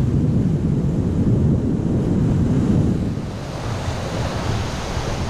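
Ocean surf washing and breaking against the cliff base below, with wind buffeting the microphone. About three seconds in, the low rumble eases and a brighter hiss of breaking white water rises.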